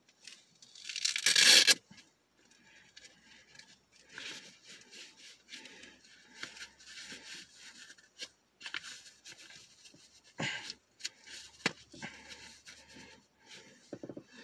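A glove's hook-and-loop wrist strap ripped open loudly about a second in, followed by rustling and rubbing of the gloves as they are pulled on and adjusted, with a few small sharp ticks.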